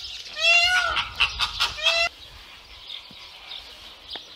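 Flamingos giving loud honking calls, two calls in the first two seconds, each rising then falling in pitch. The sound cuts off abruptly about halfway through, leaving faint background with faint bird chirps.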